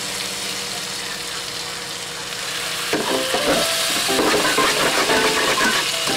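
Pork cubes, onion and garlic sizzling in a hot metal wok after a splash of water, with a spatula scraping across the pan bottom: deglazing the browned bits. Light background music comes in about halfway through.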